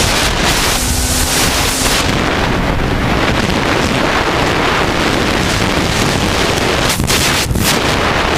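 Heavy wind noise rushing over a helmet-mounted camera's microphone as a racing motorcycle runs at speed, the engine only faintly heard beneath it.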